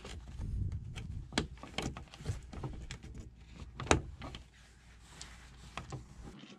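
Hands working a fabric-covered backrest cushion against teak and pressing its button snaps onto their studs: soft knocks and rubbing, with a sharper click about four seconds in.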